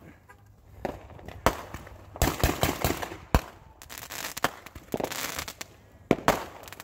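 Aerial fireworks going off overhead: a string of sharp bangs as shells burst, with two stretches of rapid crackling, about two and five seconds in.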